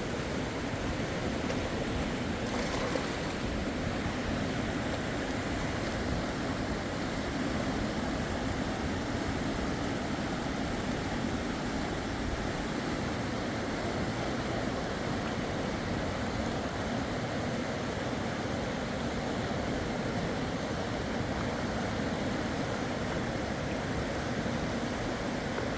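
Steady rushing of river water, even and unbroken, with a faint low hum underneath and one brief faint click about three seconds in.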